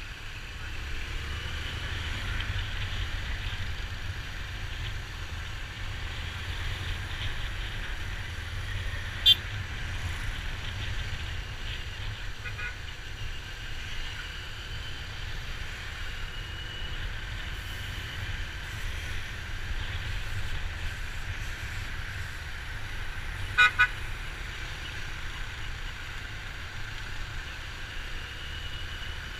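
Steady road-traffic and engine rumble heard while riding through city streets, with vehicle horns tooting: one short honk, then later a quick double toot.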